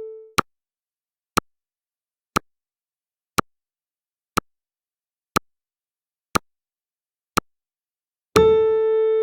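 Countdown timer sound effect: sharp clock-like ticks once a second. A ringing chime tone dies away just after the start and strikes again near the end, ten seconds after the previous one.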